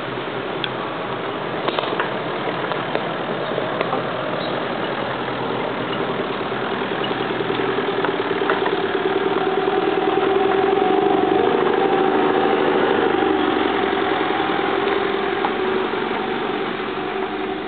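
Off-road 4x4 vehicles crawling past on a rocky dirt track, their engines running at steady low revs. The engine drone grows louder around the middle as the vehicles pass and eases off near the end.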